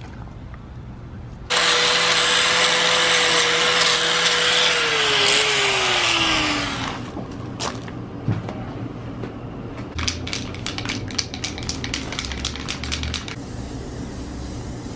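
A small angle grinder fitted with a plastic surface-cleaning pad runs for about five seconds as it scrubs the boat's running gear, its whine holding steady and then falling away as it spins down. Later an aerosol spray-paint can rattles for a few seconds and then hisses as paint is sprayed.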